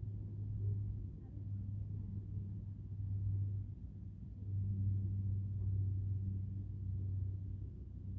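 Low droning hum of a motor, swelling and fading, with a short dip about four seconds in.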